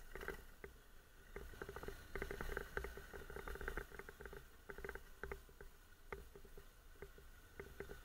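Irregular clicking and rattling as the motorcycle jolts over a rutted dirt track, over a faint steady low drone from the Honda NC750X's parallel-twin engine.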